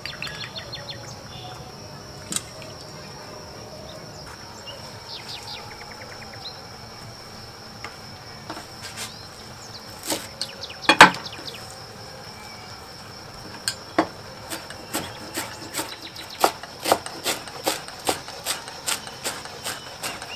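Sharp knocks over a steady high insect drone: a few scattered knocks with one loud one near the middle, then from about two-thirds of the way through a regular run of knocks, about three a second.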